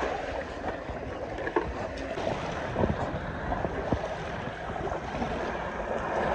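Small waves washing onto a pebbly beach, with wind buffeting the microphone and a few short knocks.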